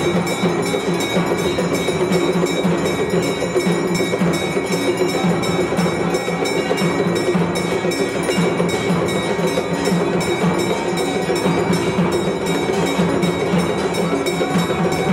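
Temple bells ringing continuously during aarti, with a brass hand bell struck rapidly and steadily over a dense, clattering din.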